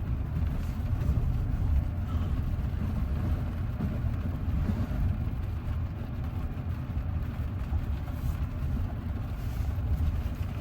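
Steady low rumble of tyres and road noise heard inside the cabin of a Tesla Cybertruck driving on a snow-covered road.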